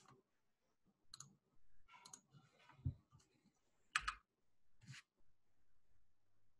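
Faint scattered clicks and soft knocks at a computer desk, about one a second, the sharpest about four seconds in, over near silence.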